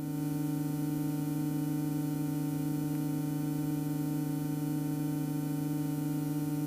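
Steady low hum with evenly spaced overtones on the cockpit intercom audio of an Extra EA-200, with the aircraft's engine running.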